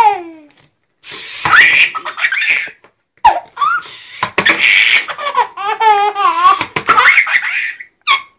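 A baby laughing hard in bursts of belly laughter, with short pauses between. Near the middle comes a longer laugh that wavers up and down in pitch.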